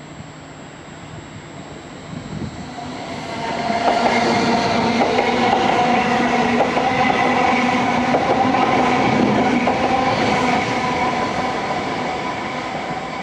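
A train running through the station, growing louder over the first few seconds into a steady whine with several tones. Its wheels click over rail joints a few times, and it eases off near the end.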